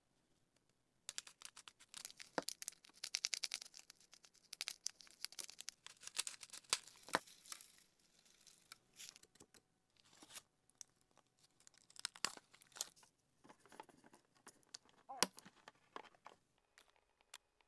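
A small plastic bag crinkling as it is handled, with small beads and plastic sprinkles clicking and pattering into a clear plastic mold. The dense crinkling thins out into scattered plastic-on-plastic clicks, with one sharper click near the end.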